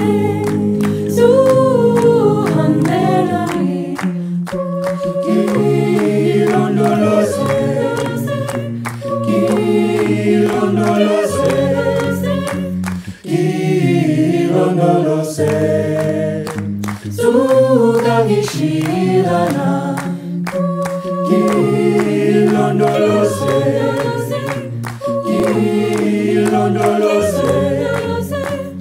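Mixed a cappella vocal ensemble singing in harmony, with sustained low bass notes under several higher voices. The singing breaks off briefly about halfway through, then resumes.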